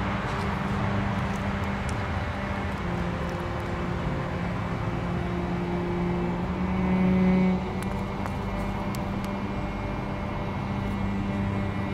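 Steady drone of freeway traffic with a low engine hum, briefly louder about seven seconds in.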